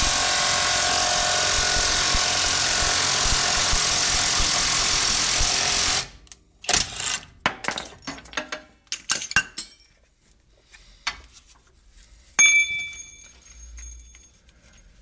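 3/8-inch impact wrench hammering steadily on a ball joint press for about six seconds, struggling to push a pivot arm bushing out, then stopping. Scattered clicks and clatter of tools and metal parts follow, and a single sharp metal clink rings out about twelve seconds in.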